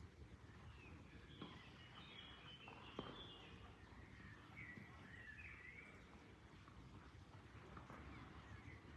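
Faint bird calls, short chirps and brief warbled phrases, over a low, steady rush of flowing water, with a soft click about three seconds in.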